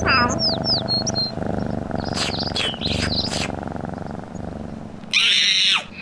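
Cartoon sound effects over a light background music bed: a few quick, high, falling bird chirps in the first second, then short noisy effects a couple of seconds in, and a loud burst of noise near the end.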